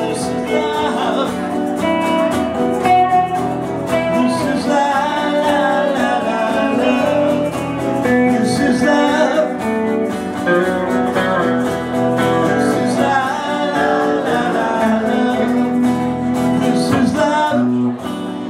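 Live power-pop band playing, with acoustic and electric guitars and singing; the playing drops off just before the end.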